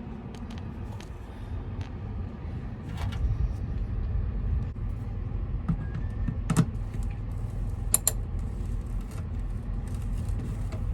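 A few sharp metal clicks and clinks from a socket wrench with a T30 bit working a screw on an Onan generator's cover, over a steady low rumble.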